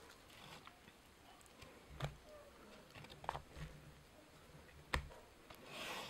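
Soft ticks and crinkles of hands peeling and folding a napa cabbage leaf for a wrap, a few separate clicks with a brief leafy rustle near the end.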